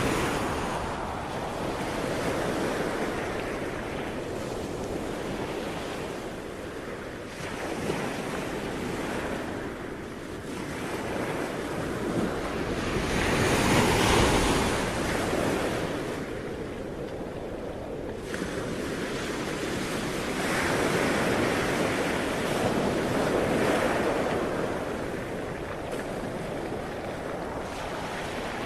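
Ocean waves breaking and washing ashore in slow surges that swell and fade, the biggest wave about halfway through.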